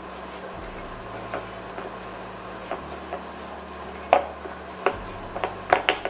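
Silicone spatula stirring and scraping thick oatmeal-raisin cookie dough in a stainless steel mixing bowl, with scattered sharp clicks and knocks against the bowl. The loudest come about four seconds in and in a quick cluster near the end.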